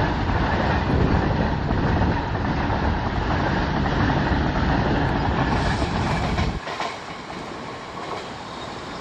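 Freight train of covered goods wagons running past close by, a loud steady rumble with wheels clattering over the rail joints. About six and a half seconds in the rumble cuts off abruptly, leaving a quieter steady hiss.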